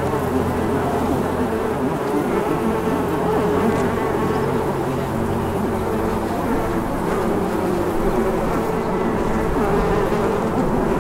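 Honeybee buzzing: a steady, dense hum of many buzzing pitches at once that does not let up.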